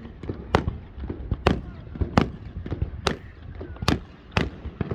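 Aerial fireworks bursting in quick succession, about eight sharp bangs at irregular intervals of roughly half a second, over a continuous low rumble from the show.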